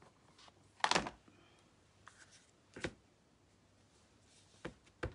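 A few separate sharp plastic clicks and taps, the loudest about a second in, as a clear acrylic stamp block and a plastic ink pad case are picked up and handled on a craft mat.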